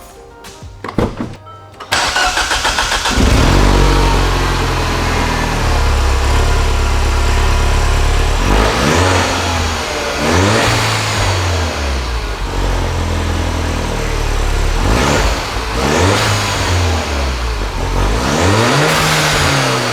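Mini Cooper S (R56) turbocharged four-cylinder, fitted with an aftermarket downpipe, starting from cold about two seconds in and running at a fast idle. Several short revs follow, each rising and falling, with the exhaust leaking at the downpipe's V-band clamp by the owner's account.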